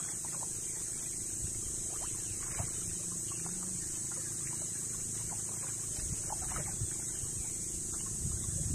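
Small water splashes and trickles at the side of a small outrigger boat, over a steady hiss and low rumble of wind and sea; the splashing grows a little louder near the end.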